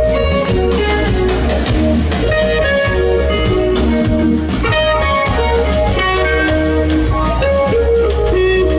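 A rock band playing an instrumental passage: guitar lines over bass and drums.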